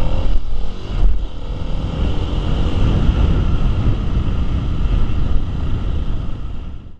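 2021 Kawasaki KLX300's single-cylinder four-stroke engine running steadily as the dirt bike is ridden, under a heavy low rumble. Everything fades out near the end.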